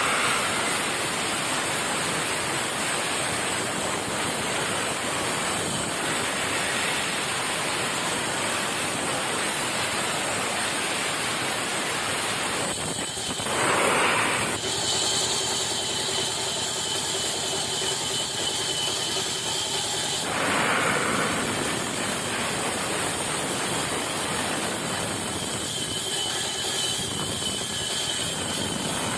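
Sawmill machinery running, a steady, noisy whir of saw and motor. Its character changes abruptly about halfway through and again a few seconds later.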